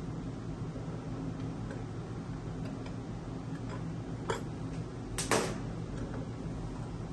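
Metal parts of a stainless-steel Belgian waffle maker being handled by hand as its top plate is worked loose: faint small ticks, a sharp click about four seconds in, then a louder double clack a little after five seconds, over a steady low hum.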